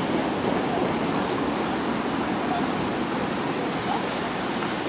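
Steady street noise of road traffic and a street-running tram on the Hankai line, easing off slightly.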